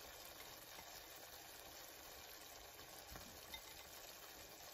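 Faint, steady sizzle of curry gravy simmering in a pan, with a couple of soft knocks about three seconds in as halved boiled eggs are set into it.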